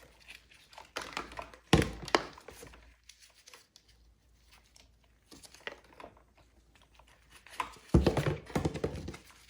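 Plastic parts being handled: the hedge trimmer's fuel tank and rubber fuel lines knocking and rustling as a line is fed through the tank's notch. Sharp knocks come about two seconds in and again near the end, with faint rustling between.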